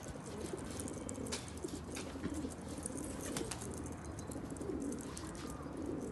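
Domestic pigeons cooing, several birds calling over one another in repeated low coos, with scattered light clicks.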